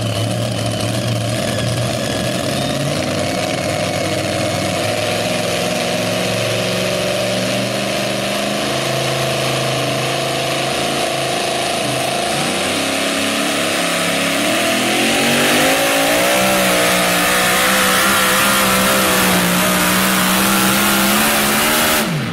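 Supercharged engine of a mini pulling tractor running steadily at the line. About twelve seconds in it climbs in pitch, and from about fifteen seconds it runs loud at full power through the pull, its pitch wavering.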